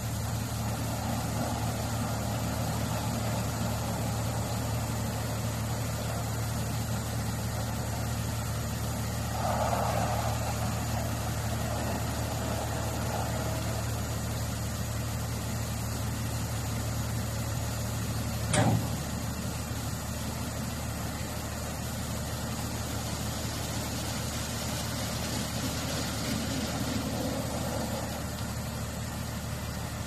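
Automatic gantry bus-wash machine running: a steady low motor hum with the hiss of water spray as its rotating brushes scrub the bus. A sharp clunk comes a little past halfway, after which the low hum eases.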